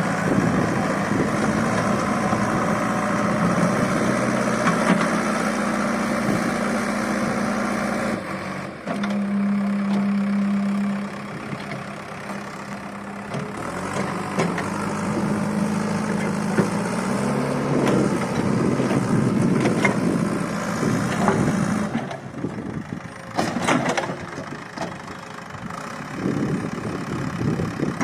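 JCB backhoe loader's diesel engine running, its speed stepping up and down several times as the machine works. A few sharp knocks come late on.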